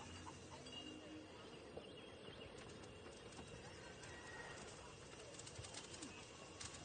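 Nearly silent room ambience: a faint even hiss with a few brief, faint high chirps, and faint clicks starting near the end.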